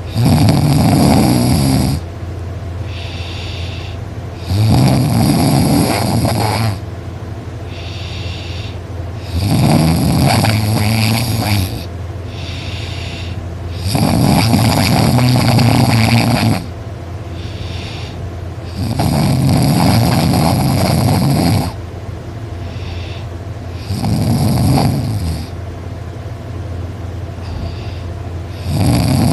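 A person snoring loudly in deep sleep: a long rasping snore about every five seconds, with quieter breaths between.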